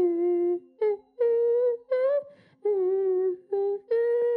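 A boy humming a melody with his mouth close to a handheld microphone: about seven short held notes with brief gaps between them, the last one starting near the end and held long.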